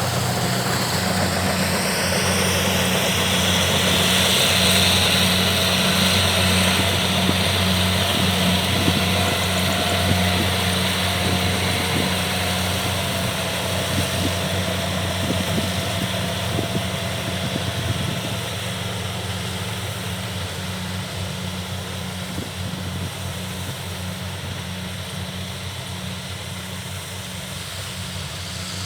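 Kubota DC70 rice combine harvesters running steadily while harvesting, the diesel engine's hum under a dense whir of threshing and cutting machinery; the sound grows quieter over the second half.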